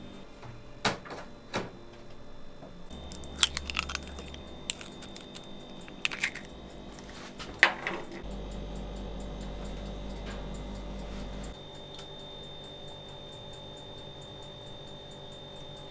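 Kitchen clatter while making pies: a scattered run of sharp clinks and taps of dishes and utensils in the first half, the loudest about eight seconds in, then only a low steady hum.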